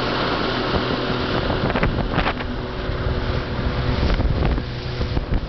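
Boat engine running steadily under the rush of water past the hull, with wind buffeting the microphone in a couple of louder gusts about two and four seconds in.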